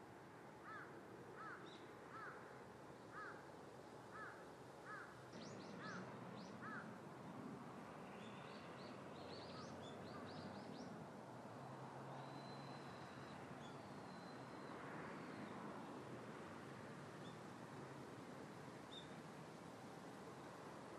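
Faint outdoor ambience with a steady hiss of background noise. A bird calls about eight times, roughly once a second, then higher, quick chirps of small birds follow.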